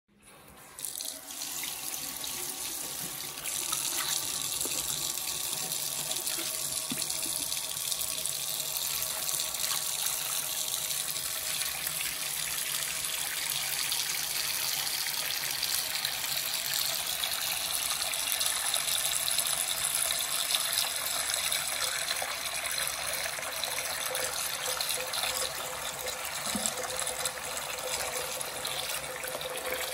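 Bathroom sink mixer tap turned on about a second in and running steadily into the basin, the flow growing stronger a few seconds later.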